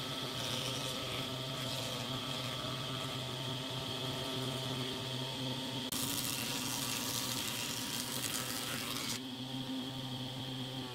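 Thickness planer of a combination woodworking machine running with a steady hum. About six seconds in, a board feeds through the cutterhead and a harsh hiss of planing wood joins the hum for about three seconds, then stops.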